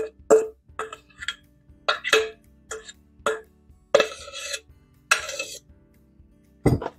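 Spoon knocking and scraping against a stainless steel mixing bowl as a thick cheese-and-chicken mixture is scraped out of it. A run of sharp taps with a ringing tone, slowing as it goes, then two short scrapes about four and five seconds in, and a low thump near the end.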